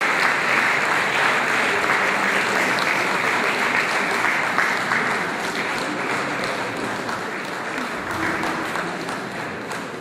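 Audience applauding, the clapping easing off gradually.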